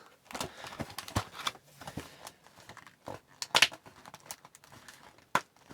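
Hands handling and opening a sealed cardboard hobby box of trading cards: scattered small clicks, taps and crinkles of cardboard and plastic wrap, with a few sharper snaps.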